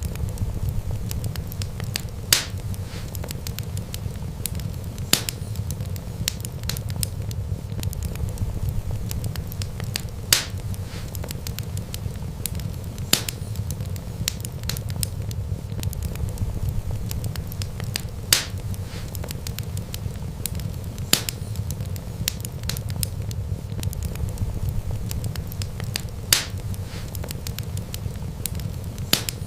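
Wood fire crackling: a steady low rumble of burning with a sharp pop every few seconds. The pops recur in the same even pattern about every eight seconds.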